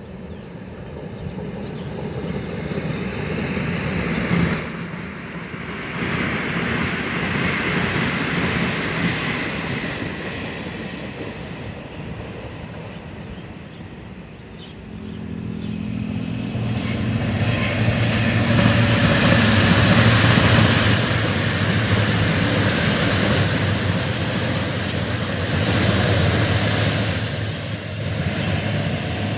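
A Puyuma tilting electric express passes at speed, a rushing of wheels on rail that builds over the first few seconds and then fades. About halfway through, a diesel multiple-unit Tze-Chiang express approaches and runs past, the low steady hum of its diesel engines under the wheel noise, loudest a little after the middle.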